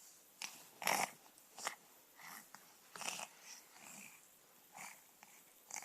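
Baby making raspy noises with his throat: a string of short bursts, about half a dozen, the loudest about a second in.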